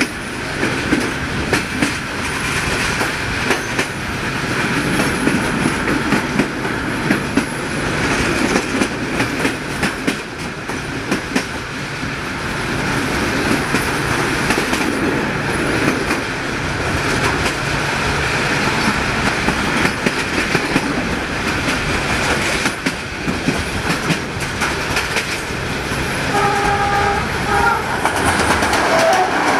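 Passenger train carriage running at speed, its wheels clattering irregularly over rail joints under a steady rumble. Near the end a train horn sounds in a longer and a shorter blast as an oncoming train draws close.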